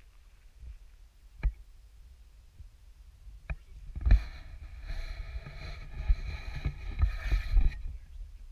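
Handling noise on a handheld action camera: a low rumble with two sharp knocks, then about four seconds of louder rustling and knocking starting about halfway through.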